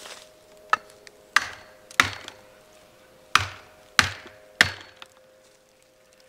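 An axe swung down onto a plastic felling wedge, hammering it into a saw cut in a stump: six sharp knocks in two sets of three. The wedge spreads the cut so the notch in the stump's top clamps the chainsaw bar like a vise.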